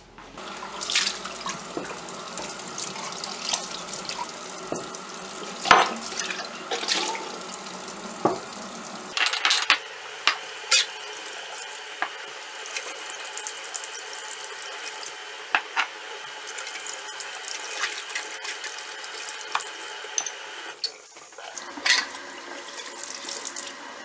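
Kitchen tap running into the sink, with glass jars and metal lids clinking and knocking sharply as they are washed and set down.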